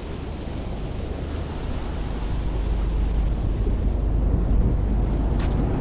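Sea surf surging and breaking against the rocks of a breakwater, under a heavy wind rumble on the microphone. The rush grows louder through the middle.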